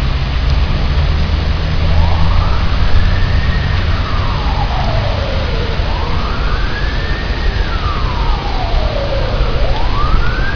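Heavy rain pouring steadily. About two seconds in, a siren starts, wailing slowly up and down three times, each rise and fall taking a few seconds.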